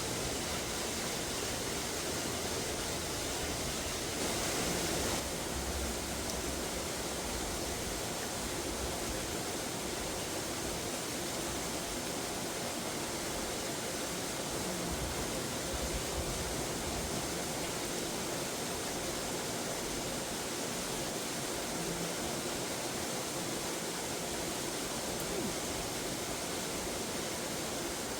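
Steady rain falling, an even hiss, with a brief louder patch of hiss about four seconds in.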